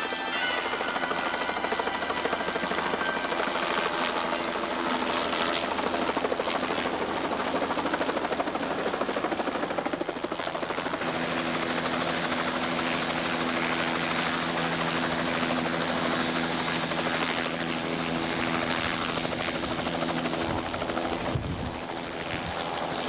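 Helicopter flying in low and hovering near the ground, its rotor chopping rapidly over a continuous engine noise; a steadier engine tone joins about halfway through.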